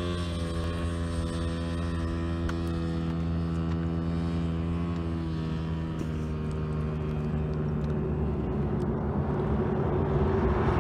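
A motor engine running at a steady pitch, dipping slightly about halfway through. A rushing noise builds over it in the last few seconds.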